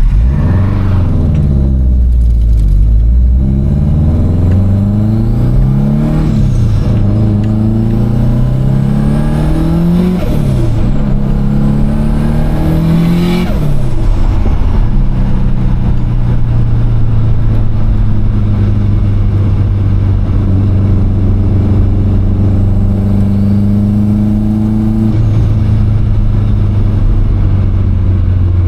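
Subaru WRX's turbocharged flat-four accelerating through several gears, its pitch rising and dropping back at each shift, then running steadily at cruise. A high turbo whistle rises with the longer pulls. The car has a narrowed 3-inch intake straight off the turbo and no blow-off valve, so that the turbo flutters when the throttle is lifted.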